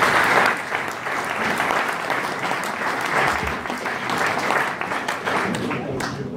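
Audience applauding, a dense patter of many hands clapping, loudest at the start and then holding steady.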